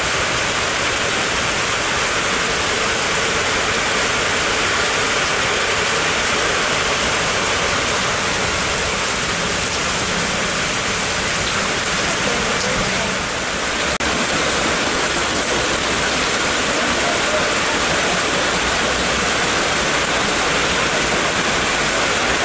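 Rain falling on a corrugated metal shed roof and pouring off the eaves: a steady, even rush.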